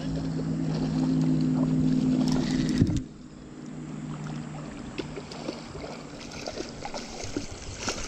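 A steady low motor hum that stops with a knock about three seconds in. It leaves quieter creek water and small clicks.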